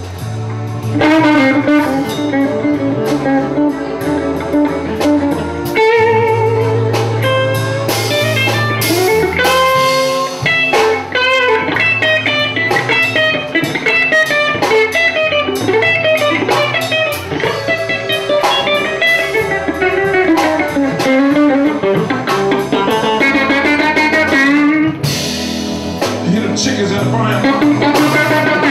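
Live blues band: an electric guitar plays lead lines with bending, wavering notes over bass guitar and drum kit.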